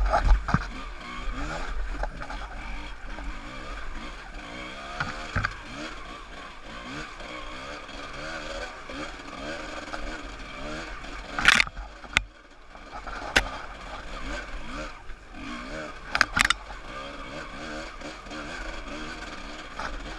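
Yamaha WR200 two-stroke trail bike's engine, revving up and down as the bike climbs a rocky, muddy lane. Several sharp knocks and clatters come past the middle as it hits rocks.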